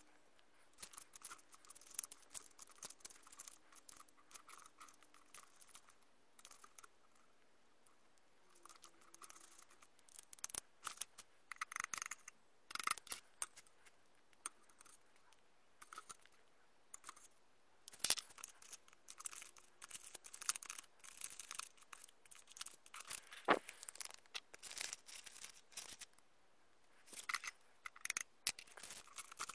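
Small plastic spoon scraping and tapping against a plastic tray's compartments while stirring gummy mix: light, irregular scratching and clicking, with a few sharper taps.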